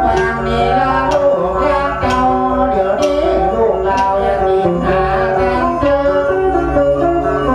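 Northern Thai so-style folk music from a pin (plucked lute) and salo (bowed fiddle) ensemble, playing a lively melody over steady held low notes.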